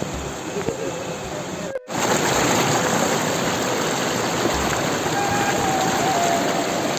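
Waterfall water rushing and splashing in a steady, dense roar of noise; it cuts out briefly about two seconds in and comes back louder.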